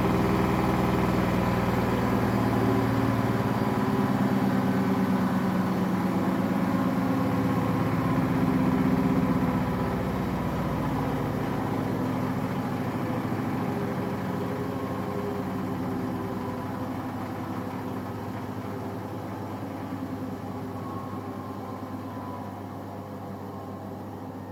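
AEG washing machine's drum on a spin cycle, running steadily and then slowing down, growing gradually quieter from about ten seconds in. The owner says the machine has developed a banging during spin since its drum was replaced.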